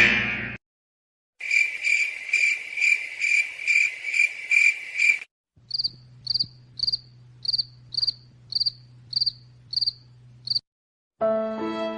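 Two cricket-chirping sound effects in a row: first a quick, regular chirp about three times a second, then a higher, slower chirp about twice a second over a low steady hum.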